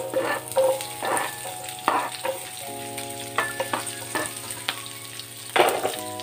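Chopped onion tipped off a plastic chopping board into hot oil and cumin seeds in a nonstick pan, sizzling, with sharp clicks and taps as pieces land and the board scrapes and knocks the pan. A steady hum runs underneath.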